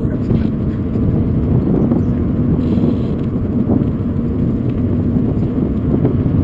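Steady wind rumble buffeting a bicycle-mounted camera's microphone while riding, a dense low noise with a few faint knocks from bumps in the path.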